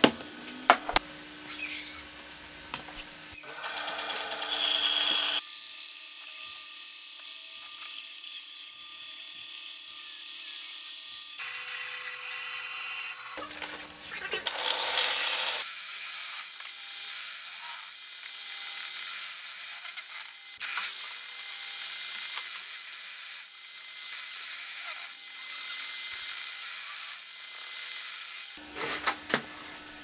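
Power saws cutting wood in several short edited stretches of steady, high-pitched cutting noise, one of them a table saw cutting a board. A few sharp hammer blows on nails come at the start.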